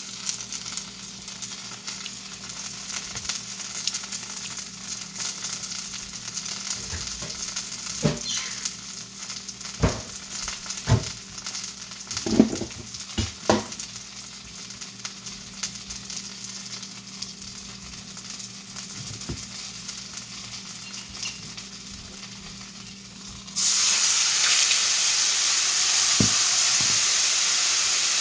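Food sizzling and frying in a hot pan, with a handful of sharp knocks of a utensil against the pan around the middle. Near the end a much louder steady hiss starts suddenly and carries on.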